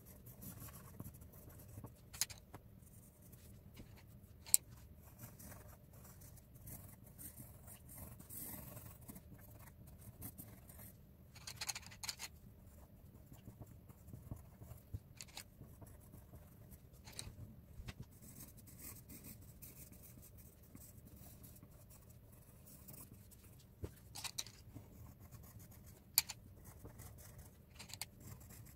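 Coloured pencils scratching softly on paper as a drawing is shaded in, with a few sharp taps on the wooden table, the loudest about four seconds in and near the end.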